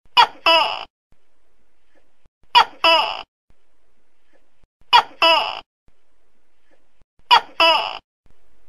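Tokay gecko calling four times, about every two and a half seconds, each call a two-part 'to-kek' made of a short sharp note and a longer one.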